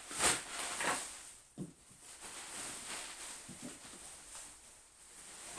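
Rustling and scraping of cardboard and plastic packaging being handled as a large shipping box is opened, with a couple of louder scrapes in the first second and soft knocks later.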